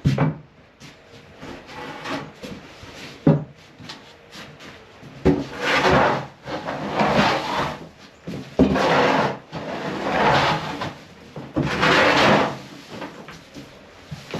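Handling noises from coop clean-out work: a few sharp knocks, and several scraping, rubbing sounds of a second or two each, like wooden boards or gear being moved and dragged.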